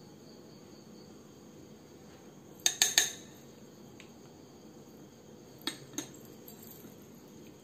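Steel spoon clinking against glass as ice cream is scooped onto a glass mug: three quick clinks just under three seconds in, then two fainter ones about three seconds later.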